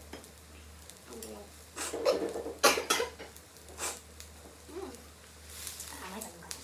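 Sounds of people eating at a table: chewing and mouth noises, with a cluster of short sharp clicks or smacks about two to four seconds in, over a low steady hum.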